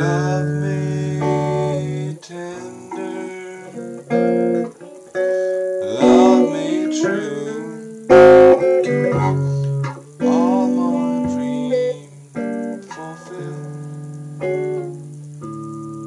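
Electric guitar played: a run of chords and picked notes with long sustained low notes, and some notes bent in pitch around the middle.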